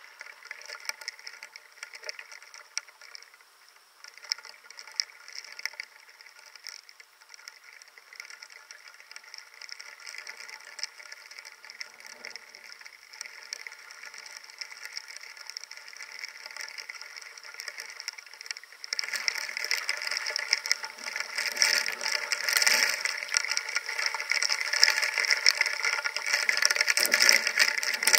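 Rain or hail striking a hard surface: a dense rattle of countless small impacts that grows sharply heavier about nineteen seconds in.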